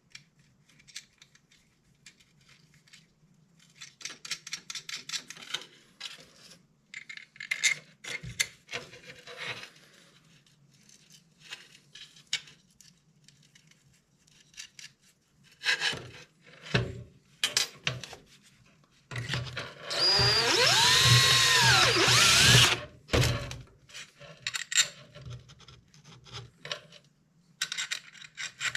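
Small metal parts being fitted, with scattered clicks and runs of rapid clicking, then a small handheld power tool's motor running for about three and a half seconds, its pitch rising and falling as it speeds up and slows down, while fastening a stainless 10-32 screw and nut.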